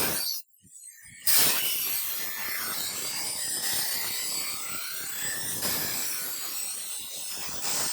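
Steady abrasive scraping from hand work on the knife, starting about a second in after a brief scrape at the very start.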